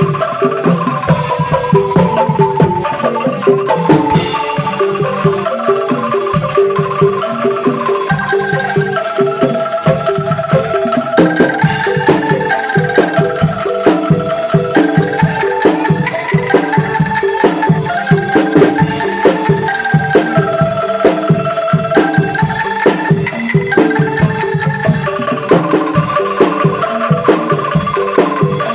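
Angklung ensemble playing a melody, the shaken bamboo tubes sounding held notes that step up and down, over a steady drum beat.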